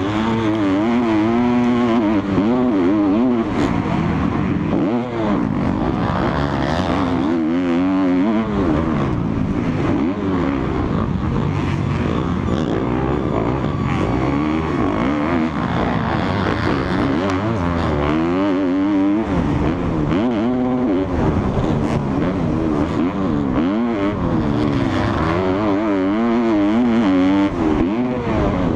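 Motocross bike engine recorded close up from a camera mounted on the bike, revving hard and falling back again and again as the rider accelerates, shifts and backs off through the corners and straights of a race lap.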